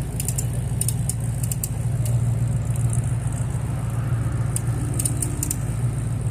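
Chevrolet Camaro engine idling with a steady low rumble, with short high ticks now and then.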